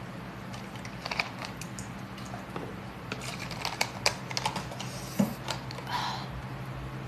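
A run of light, irregular clicks and taps, densest in the middle few seconds, over a steady low hum.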